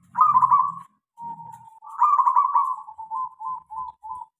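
Zebra dove (perkutut) singing: two trilled coo phrases, the second longer and ending in a string of about five short notes.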